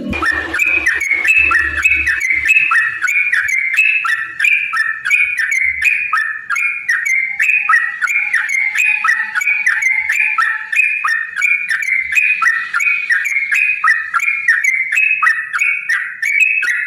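Yellow-vented bulbul (trucukan) singing a long, fast run of short, bubbly whistled notes, about three a second, without a break.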